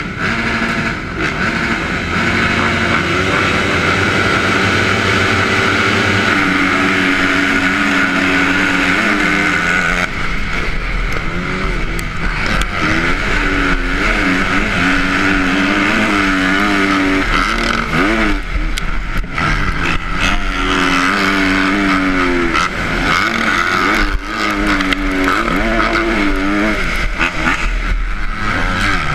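Motocross bike engine at race pace, heard from a camera mounted on the bike. It runs fairly steady for the first few seconds, then revs up and drops back again and again as the rider shifts through the gears, with other bikes running close by.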